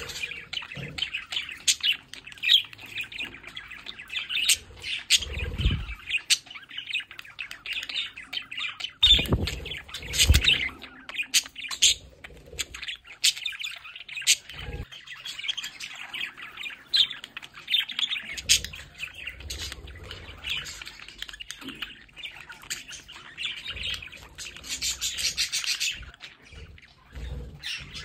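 A flock of budgerigars warbling, chirping and chattering continuously, with a few low thumps.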